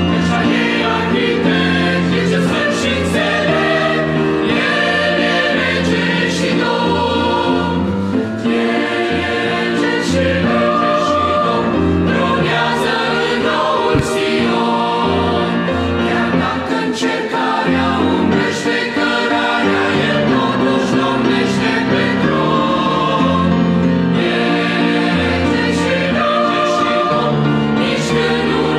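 Mixed choir singing a Romanian hymn in several parts, with grand piano accompaniment, full and steady throughout.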